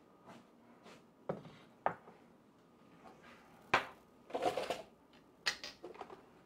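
Ceramic serving bowls set down on a wooden cutting board: a few sharp knocks spread through the stretch, the loudest nearly four seconds in, followed by a brief scrape as the bowls are shifted into place.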